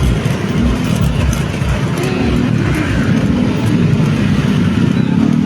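Motor vehicle on the move: a steady engine hum with road noise, and low wind buffeting on the microphone.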